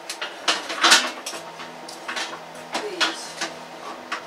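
Metal baking trays and the oven's wire racks clattering and knocking as they are handled inside a microwave oven: several sharp knocks, the loudest about a second in.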